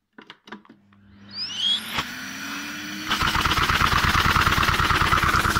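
A vacuum cleaner is switched on after a few clicks and its motor whines up in pitch. About three seconds in, a LEGO hinge-valve vacuum engine driven by the suction starts spinning, a loud, fast, even clatter over the vacuum's drone.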